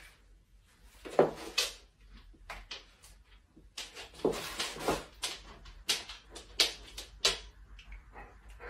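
A run of irregular sharp knocks and clicks in a small room, sparse at first and coming thicker from about four seconds in.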